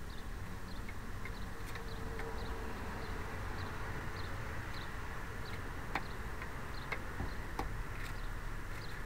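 A steady low hum and hiss, with faint high chirp-like ticks repeating about twice a second and a few light taps about six and seven and a half seconds in.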